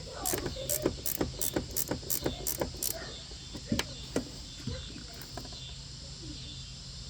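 Ratchet wrench clicking in quick, even strokes, about four a second, as hinge bolts are run down, then a few separate clicks as the turning slows and stops about halfway through.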